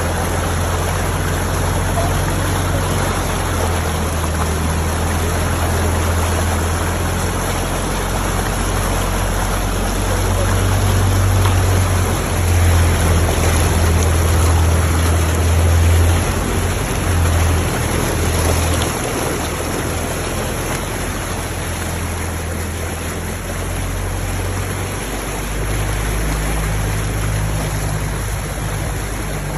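Land Rover Defender's Td5 five-cylinder turbodiesel running steadily under load as it pushes through deep floodwater, under the continuous rush and splash of the bow wave against the body. The water noise swells louder for a few seconds around the middle.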